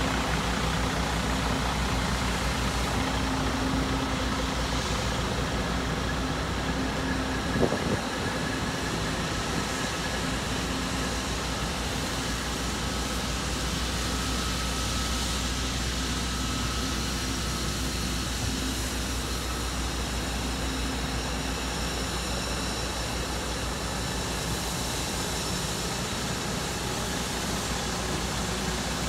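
Freightliner FL112 truck's Mercedes-Benz diesel engine idling steadily, with one short knock about eight seconds in.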